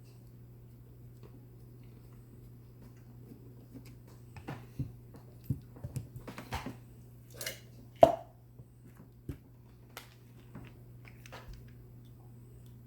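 Small handling noises from working with small parts by hand: a scatter of light clicks and taps from about four seconds in, with one sharp click about eight seconds in, over a steady low hum.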